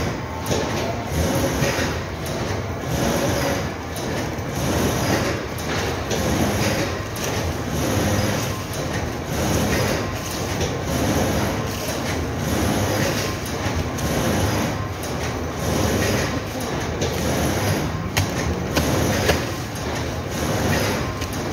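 Steady noise of carton-box factory machinery running, rising and falling a little in level, with a few sharp knocks, the strongest near the end.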